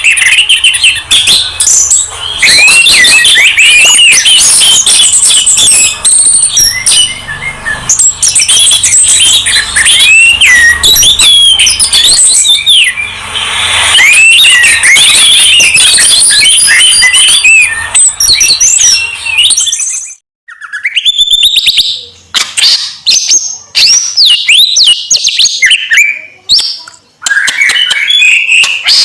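Songbirds singing loudly and without pause, a masteran mix of orange-headed thrush, white-eye and greater green leafbird song: a dense run of quick, high, chattering and gliding notes. About 20 seconds in it breaks off briefly, then goes on as sparser, sweeping whistled phrases.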